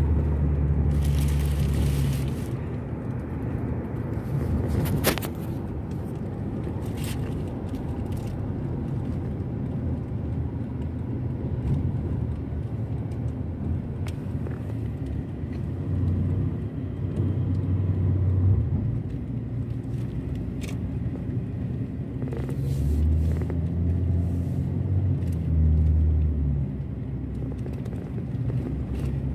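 Road and engine noise inside a moving car: a steady low rumble that swells a few times, with a sharp click about five seconds in.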